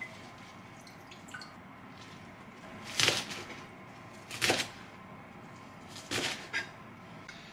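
A kitchen knife chopping through a bunch of nanohana (rapeseed blossoms) onto a wooden cutting board: three separate cuts about a second and a half apart, the last a quick double stroke. Before them come faint drips and small clicks as the wet greens are handled over a bowl of water.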